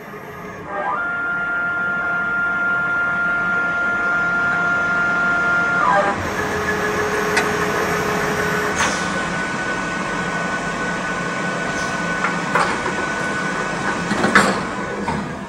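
CNC machining centre running, its motors giving a steady whine over a rushing mechanical noise. The whine steps to new pitches about a second in and again around six seconds, and a few sharp clicks come in the last few seconds.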